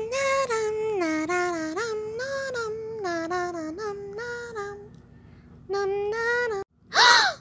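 A young voice singing a bouncy tune in short stepped notes, then a brief second sung phrase. Near the end comes a short, loud sound that rises and falls in pitch.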